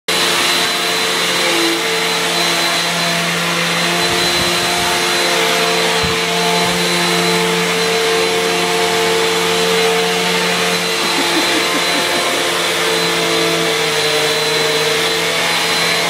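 Upright vacuum cleaner running steadily while it is pushed across carpet: a constant motor whine over hiss. A couple of brief low bumps come about six seconds in.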